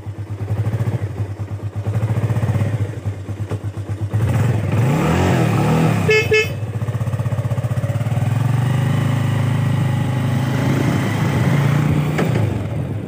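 Small motorcycle engine running as the bike is ridden, its pitch rising and falling between about four and six seconds in. The motorcycle's horn beeps twice in quick succession about six seconds in.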